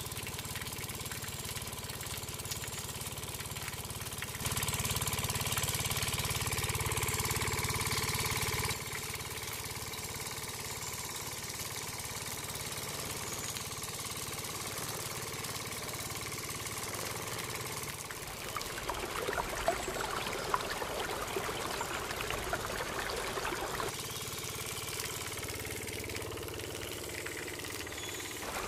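The small motor of a miniature model water pump running steadily, louder for a few seconds about five seconds in. Water from its outlet splashes into a dirt channel, most clearly for a few seconds past the middle.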